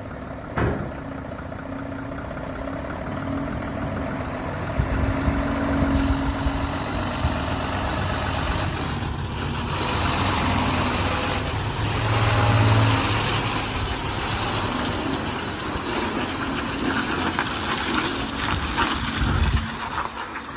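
BharatBenz heavy truck's diesel engine running at low speed as the truck moves slowly, swelling briefly about twelve seconds in as it pulls. A single sharp click about half a second in.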